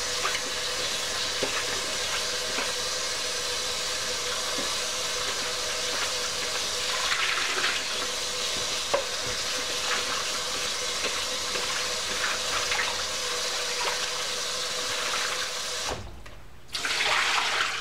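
Kitchen sink tap running steadily while broccoli is washed under it, with faint clicks of handling. The tap cuts off about sixteen seconds in, then there is a brief further rush of water near the end.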